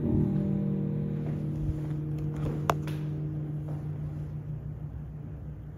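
Background music fading out over the first second or so, leaving a steady low hum with one sharp click about two and a half seconds in.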